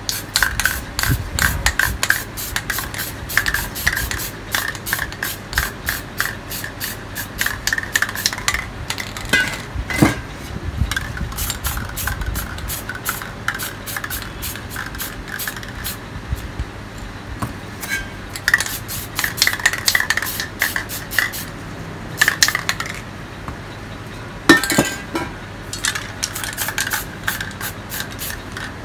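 Aerosol spray paint can spraying in runs of quick, short bursts, broken by a few brief pauses.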